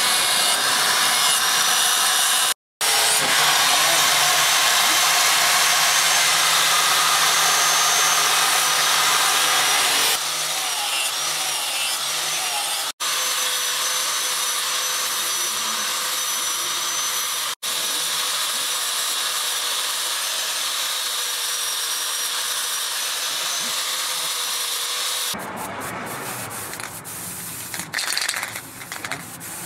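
Electric angle grinder running steadily against a steel knife blade, a high whine over a rasping hiss, grinding and then polishing; the sound drops out abruptly three times. Near the end it gives way to quieter, irregular rubbing and handling noise.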